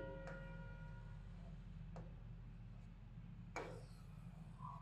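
A few faint, light ticks of chalk against a blackboard during writing, spaced a second or two apart; the clearest comes about three and a half seconds in. A low steady hum of room noise lies under them.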